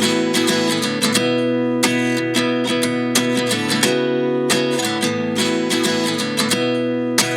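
Background music: acoustic guitar strumming chords in a steady rhythm, the intro of a pop song before the vocals come in.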